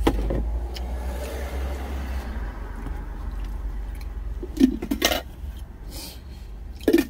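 Lunch food-jar lids clicking and knocking as the containers are handled and closed: a few sharp knocks about four and a half to five seconds in and again near the end. Under them runs the steady low hum of the truck's engine.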